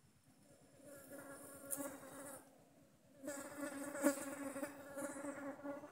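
A flying insect buzzing close by at a steady pitch, in two stretches with a short break between them, the second longer, plus a couple of sharp ticks.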